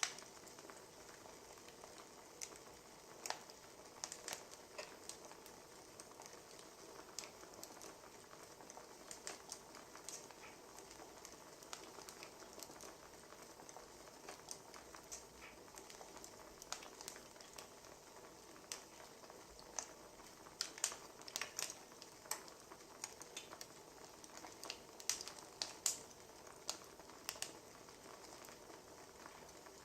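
Burning firewood crackling: irregular sharp pops and snaps over a steady low hiss, coming thicker in the later part.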